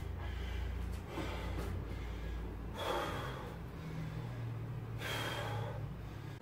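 A man breathing hard after a set of heavy sumo deadlifts, with loud breaths roughly every two seconds as he recovers from the exertion.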